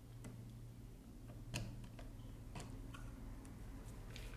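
Faint, irregular light ticks and clicks of a screwdriver working the brass terminal screw on a wall switch, the loudest about a second and a half in, over a low steady hum.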